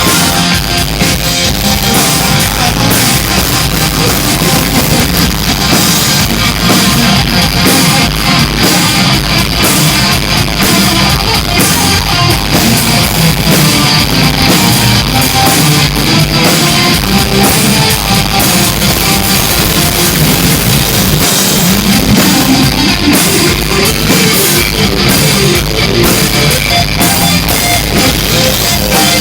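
Loud live rock music: electric guitars and a drum kit playing with a steady beat.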